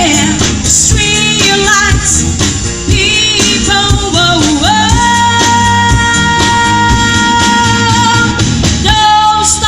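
Loud pop-style song, a singer over a band with a steady beat, with one long held note in the middle.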